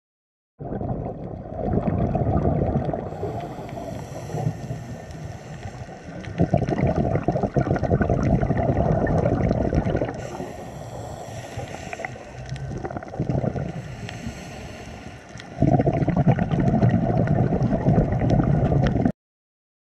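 Underwater sound picked up by a camera under water: a muffled rushing of water that swells loud three times and falls back between, with faint scattered clicks throughout.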